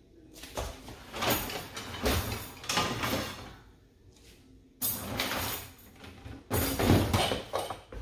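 Rummaging through kitchen cabinets for a pan: cabinet doors and cookware shifted and clattering in several loud bursts with short pauses between them.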